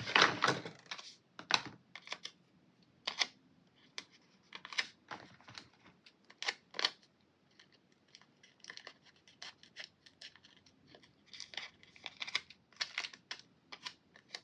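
Paper sticker sheets being handled and stickers peeled: scattered short crinkles and taps, the loudest crinkle in the first half-second.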